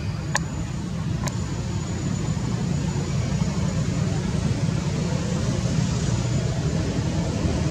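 Steady low rumble of background noise, with two sharp clicks in the first second and a half and a faint high steady whine.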